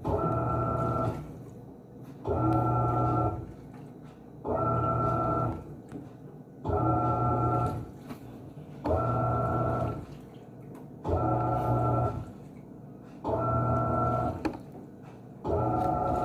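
Panasonic 14 kg washing machine in its wash stage: the motor hums in bursts of about a second, one every two seconds, as the wash action turns back and forth.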